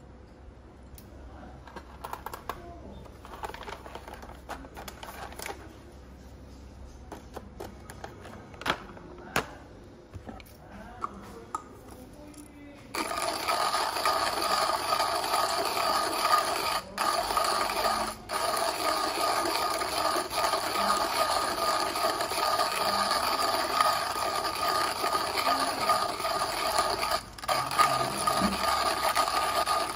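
Coffee beans rattling and clicking as they are scooped and poured into a hand burr grinder. About thirteen seconds in, the grinder's crank starts turning and the burrs crush the beans in a loud, continuous gritty grinding, broken by a few brief pauses.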